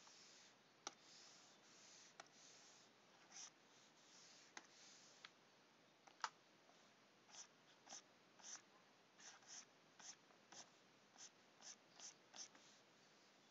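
Faint, short scratchy strokes of a stylus drawn across a graphics tablet, coming in quick runs of about two a second in the second half, with a few sharp clicks, the loudest about six seconds in.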